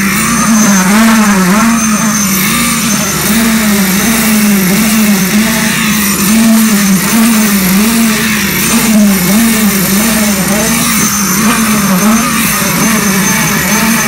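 Concrete poker vibrator running with its flexible shaft pushed into fresh concrete to compact it: a loud, steady motor hum whose pitch wavers up and down about once or twice a second.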